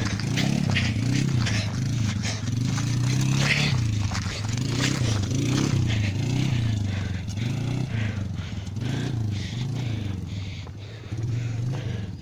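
Polaris 330 cc quad bike engine revving up and down over and over as it is ridden, rising and falling about once a second, with gravel crunching underneath.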